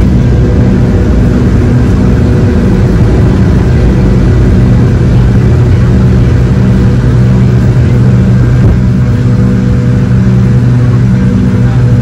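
Cabin noise of a McDonnell Douglas MD-88's rear-mounted Pratt & Whitney JT8D turbofans at takeoff thrust as the jet lifts off and climbs. It is a loud, steady drone with a deep hum.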